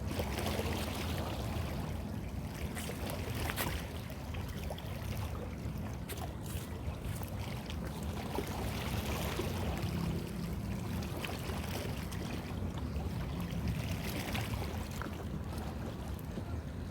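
A steady low motor hum, like a boat engine running on the water, over a continuous wash of water noise, with a few light clicks.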